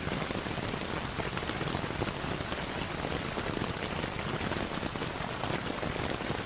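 Steady rain falling on a surface, a dense, even patter of drops.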